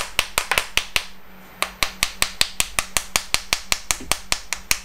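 Rapid, even tapping on the plastic case of a sealed lead-acid battery, about six taps a second, with a short break about a second in. The tapping is meant to dislodge air bubbles blocking the fill ports so the water can go in.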